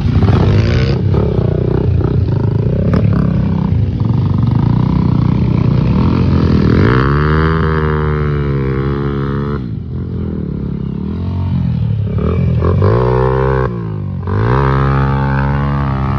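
Dirt bike engines revving hard as the riders spin the rear wheels in loose dirt, the pitch climbing and falling with the throttle. The revs drop briefly about ten seconds in and again near fourteen seconds, then pick up again.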